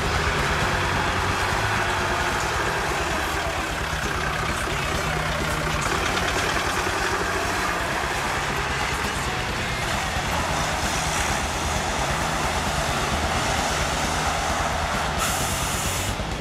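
Off-road 4x4's engine running steadily under load as the vehicle churns through mud and water. A brief burst of hiss comes near the end.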